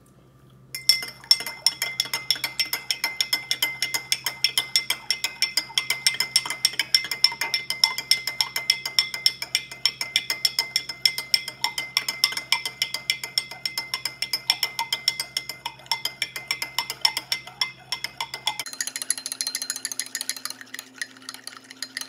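Metal spoon stirring water in a drinking glass, clinking against the glass several times a second, over a faint steady hum.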